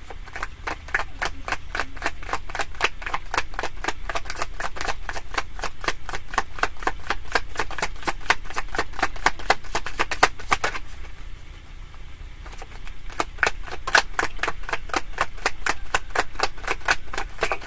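Tarot deck being shuffled by hand: a quick run of sharp card slaps, about five a second, breaking off for a second or so about two-thirds of the way through, then resuming.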